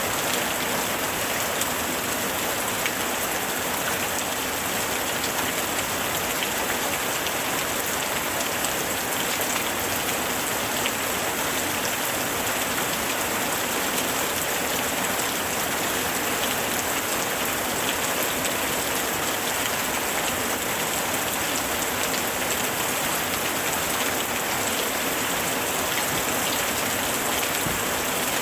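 Steady rain falling, a dense even patter with scattered individual drop ticks.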